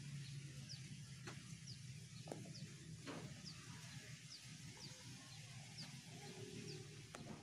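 A small bird chirping faintly and repeatedly: short high chirps, about two a second, at a steady pace. A few soft clicks come in between.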